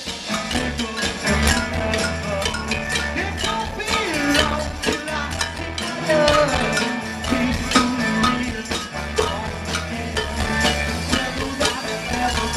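Live rock band playing: drums, bass, guitar and keyboards, with tambourine jingling along.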